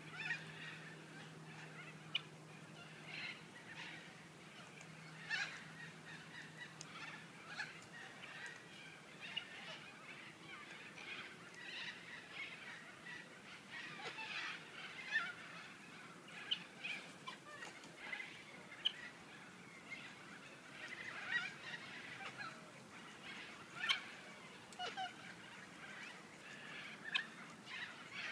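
Sulphur-crested cockatoos and helmeted guineafowl calling: many short, harsh calls overlapping, with a sharp, louder screech every couple of seconds.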